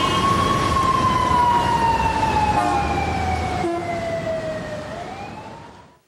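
A siren wailing in one slow sweep: the pitch rises briefly, then falls gradually over several seconds, with a noisy rumble beneath. It fades out near the end.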